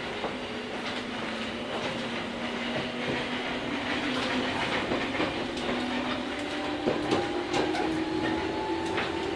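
Tobu 8000 series electric train heard from inside the car, its traction motors giving a whine that rises slowly in pitch as it picks up speed. The wheels click over rail joints throughout.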